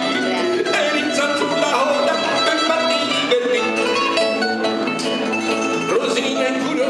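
Lyre guitar (chitarra lyra) playing an instrumental passage: a plucked melody over chords, a steady run of changing notes.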